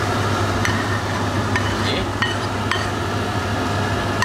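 A serving spoon scraping and clinking against a pan as stir-fried noodles are scooped out onto a plate. There are several short, sharp clinks at uneven intervals over a steady low hum.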